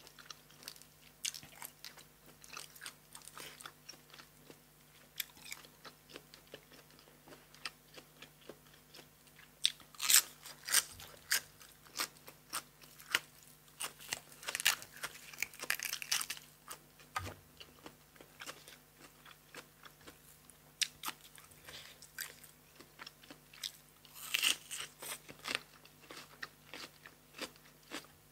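Close-miked eating of crisp blanched cuttlefish: crunchy bites and chewing with wet mouth clicks, the loudest crunching about ten, fifteen and twenty-four seconds in.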